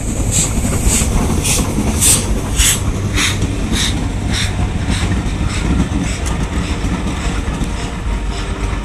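Steam locomotive working hard, its exhaust chuffing about twice a second over a low rumble. The chuffs fade after about five seconds.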